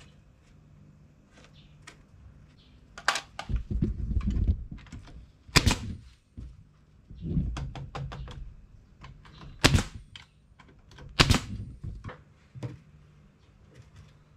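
Wooden trim strips being fastened down over rattan sheet on a drawer front: four loud, sharp knocks of fasteners being driven, spaced one and a half to four seconds apart, with smaller clicks and low knocking and rubbing as the wood is handled between them.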